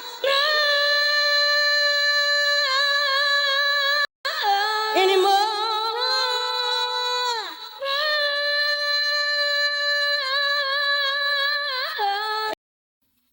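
Isolated a cappella lead vocal singing long held notes with no words: three sustained notes with vibrato, a short break about four seconds in, the second note sliding down at its end, then silence near the end.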